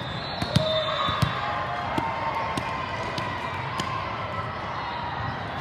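Volleyball being played in a gym: several sharp thuds of the ball being hit and bouncing, over a steady murmur of spectators' voices.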